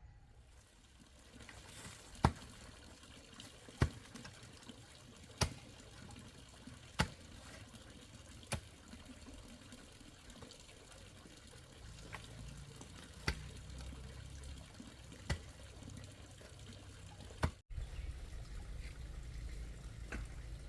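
Water dripping, one sharp drop about every second and a half, over a faint wash of water. Near the end it cuts off abruptly to a louder, steady low rumble.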